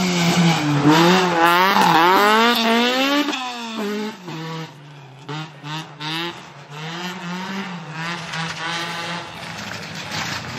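Rally car engine revving hard and climbing and falling in pitch as it drives through the stage, loudest in the first few seconds. About three seconds in it cuts sharply, then comes back in short, choppy bursts of revs before running more steadily and fading.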